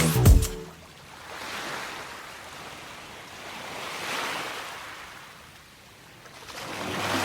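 Ocean waves washing onto a beach, swelling twice and ebbing away. A music track ends just after the start, and the next piece begins near the end.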